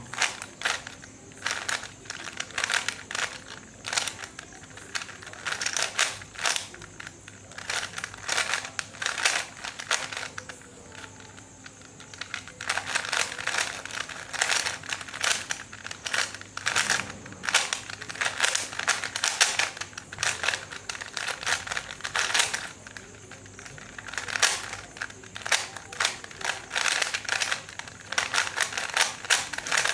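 A 3x3 Rubik's cube's layers being turned rapidly in a timed speed solve: dense, fast plastic clicking and rattling, with a brief pause about ten seconds in.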